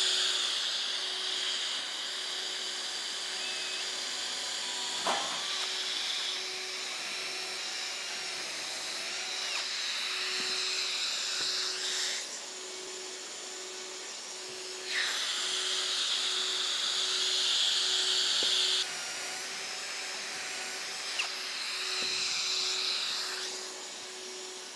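Cordless drill boring pocket holes in plywood through a pocket-hole jig, in several runs a few seconds long, over the steady suction of a dust extractor hooked to the jig. A few sharp knocks sound as the board is set in the jig, clamped and moved.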